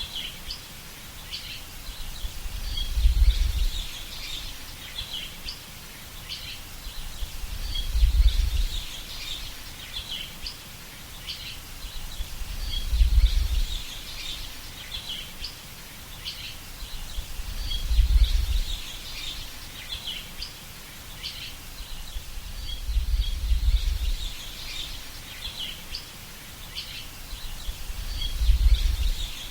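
Many small birds chirping and calling continuously. A low rumble swells and fades about every five seconds beneath them.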